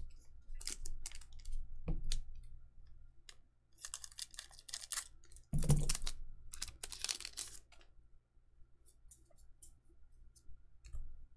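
Weiss Schwarz trading cards being handled: a booster pack's foil wrapper crinkling and cards clicking against each other as they are flipped through, in several short bursts with quieter spells between.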